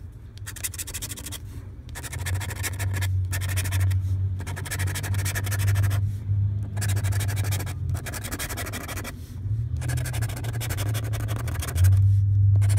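Scratch-off lottery ticket being scratched with a metal-edged tool: runs of rasping strokes a second or two long, broken by short pauses, with a low rumble underneath.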